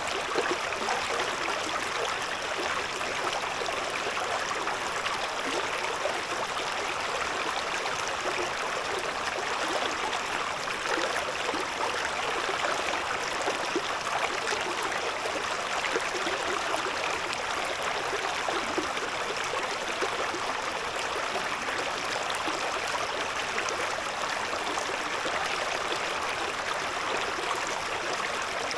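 A shallow river babbling over stones, a steady rush of water with small gurgles and splashes.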